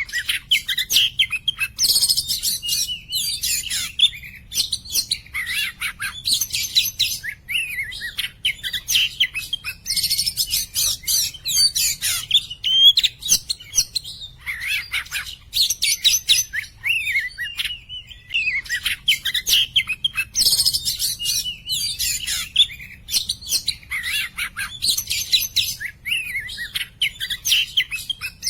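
Oriental magpie-robin (kacer poci) in full song: bursts of fast, varied whistled phrases a few seconds long, broken by brief pauses.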